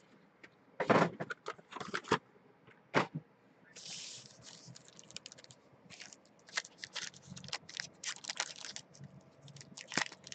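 Packaging of a hobby box of trading cards being handled and torn open: irregular crinkling, clicks and scrapes, with a short ripping sound about four seconds in.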